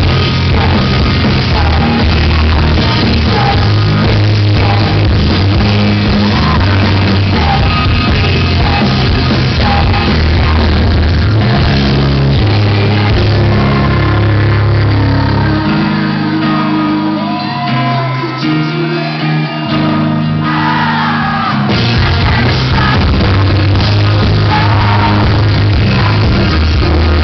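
Live rock band playing in a large hall, with a female singer at a keyboard, electric guitar, bass and drums. The bass and drums drop out for a quieter stretch from about 16 to 21 seconds in, then the full band comes back in.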